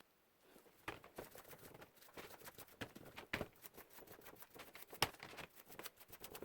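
Irregular light clicks and taps of salvaged microwave-oven components being handled during cleaning, with one sharper knock about five seconds in.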